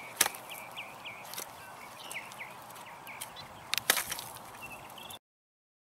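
Pine wood cracking and snapping as it is broken apart by hand, with two sharp cracks, one just after the start and one about four seconds in, and smaller crackles between. The sound cuts off suddenly a little after five seconds.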